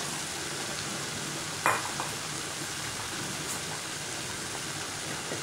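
Chopped okra sizzling in a pan on hot oil and tomato masala, a steady frying hiss. A single sharp knock sounds about two seconds in.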